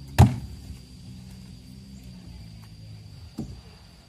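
A heavy teak log pushed off a truck bed lands with a loud, deep thud a fraction of a second in, followed about three seconds later by a smaller wooden knock, over a low steady hum.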